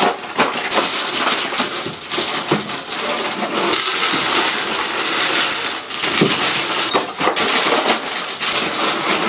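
Dry Apple Jacks cereal pouring from the box into a large glass bowl, a dense continuous rattle of small pieces striking the glass and each other. The plastic liner bag crinkles as it is pulled open at the start and again near the end.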